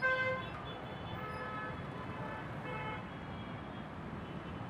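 Street traffic: a steady rumble of engines with vehicle horns honking briefly a few times.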